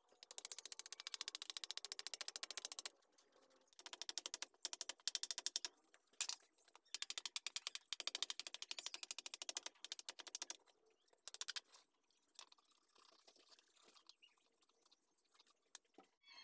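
A small blade chopping rapidly at the end of a wooden board braced on a tree-stump block, shaping the wood in a fast run of light, sharp clicking cuts. The cuts pause briefly about three seconds in and come more sparsely in the last few seconds.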